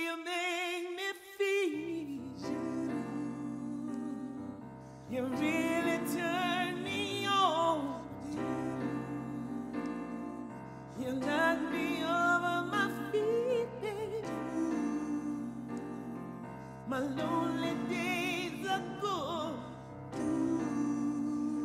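Male vocal group singing a slow, harmonised passage in long held notes with vibrato, phrase after phrase, over sustained keyboard chords and bass, with no drums.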